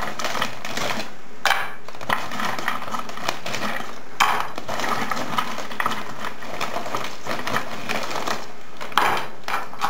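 Diced frozen beef sizzling on a hot, oiled griddle pan as more cubes are laid in by hand. A few sharp clicks stand out over the steady hiss.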